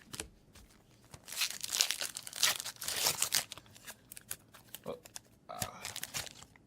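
A foil Yu-Gi-Oh booster pack wrapper being torn open and crinkled, in a dense run of rustling that lasts a couple of seconds, with more crinkling near the end.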